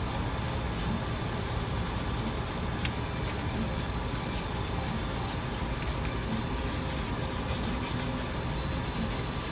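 Steady rushing shop noise, with light metal clinks and scraping from pliers and a wire brush worked on the cast-iron babbitt pouring jig on a Ford Model T engine block.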